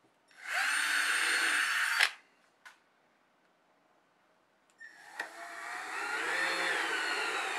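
Cordless drill boring a pilot hole through a steel figure-eight tabletop fastener into the wood. It runs steadily for about a second and a half and stops with a click. After a pause the drill drives a screw through the fastener for about three seconds, its motor whine rising and then falling.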